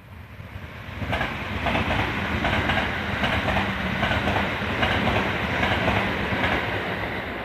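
A Gakkentoshi Line (Katamachi Line) electric train passes close by over the level crossing, its wheels clacking repeatedly over the rail joints with a steady rumble and hum. It grows loud about a second in and begins to fade near the end.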